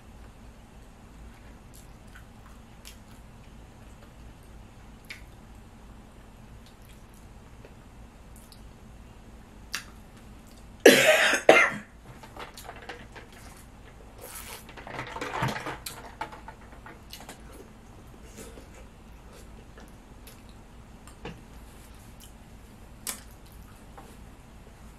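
A woman's dry cough, one loud burst about eleven seconds in, then a second, longer and quieter bout a few seconds later; she has a recurring dry cough. In between are faint small clicks and squishes of peeling and eating shrimp.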